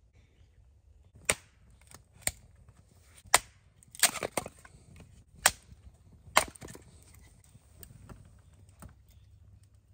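Hatchet splitting a piece of firewood into kindling: sharp chopping strikes about a second apart, with a quick cluster of knocks about four seconds in.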